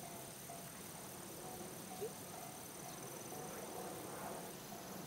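Faint level-crossing warning bell ringing steadily at about two dings a second, under a steady high trill of insects. A single short chirp sounds about two seconds in.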